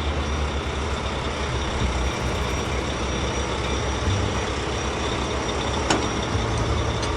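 Heavy truck engine running steadily with a low rumble, and one short sharp click about six seconds in.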